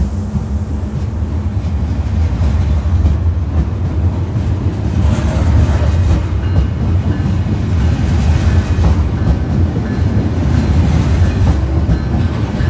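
Train running on the rails: a steady, loud low rumble with a few faint knocks from the wheels and track.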